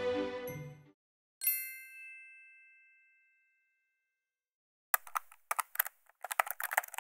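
Background music fading out, then a single bright chime that rings and fades over about two seconds, like an intro sound effect. Near the end comes a quick, irregular run of sharp clicks.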